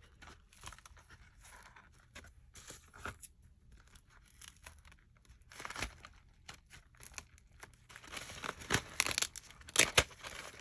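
Paper and plastic packaging rustling and crinkling as handmade craft items are unwrapped and handled, in short scattered rustles, with a louder flurry of rustling about eight seconds in.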